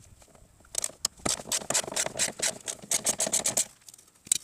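Socket ratchet clicking rapidly, about six or seven clicks a second for some three seconds, as it backs out the bolt holding the fuel filter's clamp bracket, then one more click near the end.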